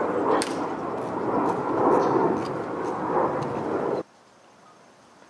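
Loud rushing noise that swells and ebbs, then cuts off abruptly about four seconds in, leaving faint open-air quiet.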